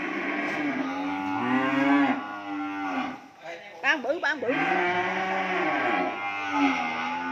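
Cattle mooing: several long, drawn-out calls follow one another and overlap, with a brief lull about three seconds in.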